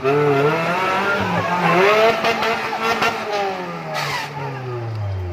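Off-road 4x4's engine revving up and down under load, its pitch then falling steadily as it eases off near the end. A short hiss about four seconds in.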